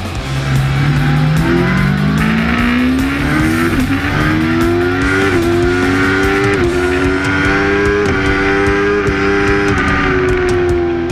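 Racing motorcycle engine heard onboard, accelerating hard: its pitch climbs and drops sharply at three quick upshifts, holds high at speed, then eases off near the end.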